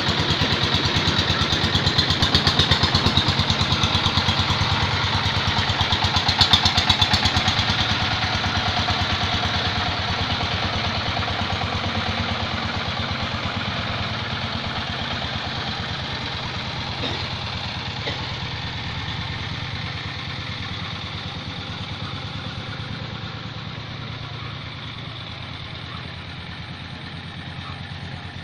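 A motor vehicle engine running steadily, close at first, then fading gradually as it moves away.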